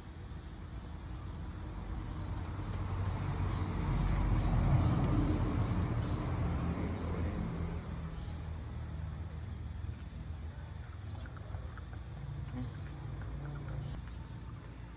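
Many short, high bird chirps, spaced about a second or less apart, in two runs with a pause between, over a low rumbling background noise that swells to its loudest around the middle and then fades.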